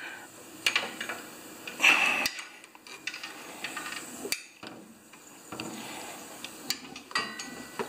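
Needle-nose pliers clicking and scraping against metal as a coolant hose is worked back onto its retainer on a lawn tractor's engine: a scatter of sharp small clicks and taps with rustling in between.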